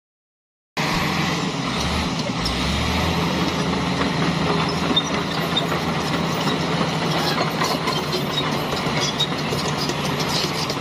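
D85 crawler bulldozer at work: its diesel engine running steadily with a constant clatter of steel tracks, starting about a second in.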